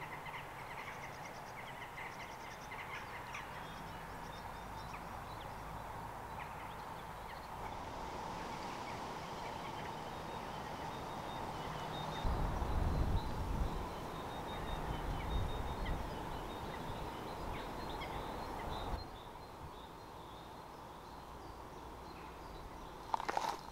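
Open countryside ambience with faint bird calls over a steady hiss. From about halfway through, wind buffets the microphone in low gusts for several seconds, and footsteps start at the very end.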